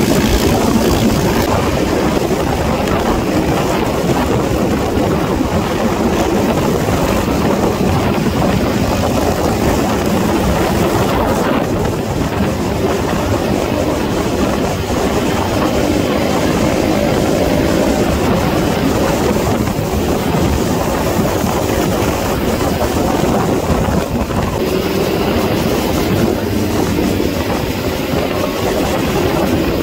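Motorcycles and quads riding in a group convoy: engines running steadily under a dense rush of wind and road noise, with engine pitch drifting slowly up and down.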